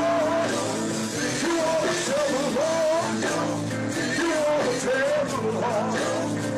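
Live gospel music: a wavering, gliding lead melody over held chords.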